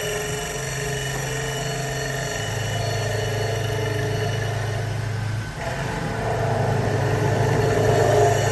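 CNC wood lathe running, its motors giving a steady hum with a higher whine and noise above it. The sound dips briefly about five and a half seconds in, then carries on.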